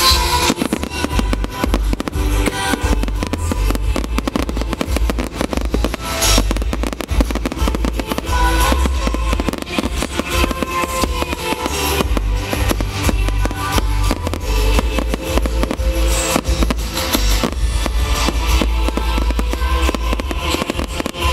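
Fireworks show: a rapid, unbroken run of bangs and crackles from aerial shells, with booms in the low end, over music with a steady drum beat.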